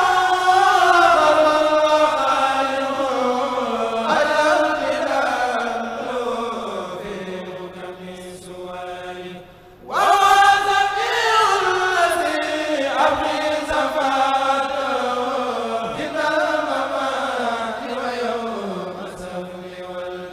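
A kourel, a group of young men, chanting a Mouride khassida in Arabic together without instruments. There are two long phrases, each starting high and sliding slowly down in pitch and fading, with a short break before the second begins about ten seconds in.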